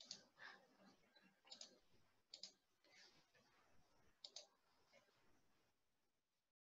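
Near silence with a few faint computer-mouse clicks, several in quick pairs; the sound drops out to dead silence near the end.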